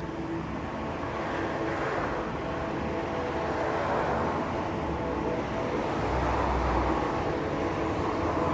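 A loud, unexplained rumbling drone from the sky, swelling and easing in slow waves, with faint steady tones that die away partway through and a deeper rumble about six seconds in.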